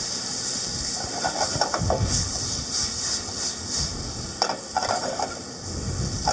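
White wine sizzling and hissing steadily in a hot sauté pan as it reduces after deglazing, cooking off the alcohol. A couple of sharp taps come near the end.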